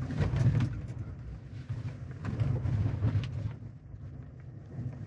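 Chevrolet Silverado ZR2's 6.2-litre V8 heard from inside the cab as the truck reverses on a gravel trail, the low engine note swelling twice under throttle, with scattered clicks and knocks from underneath.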